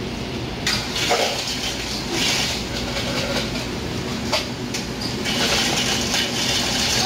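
Self-serve soda fountain pouring a drink into a cup: a hissing, rushing pour that starts and stops in a few bursts, the longest near the end, over a steady low hum.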